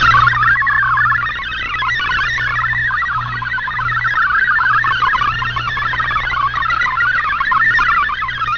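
Shortwave digital-mode data signal: a dense warble of rapidly hopping tones in an MFSK-family mode, as sent by Shortwave Radiogram, received over the radio with a steady low hum underneath.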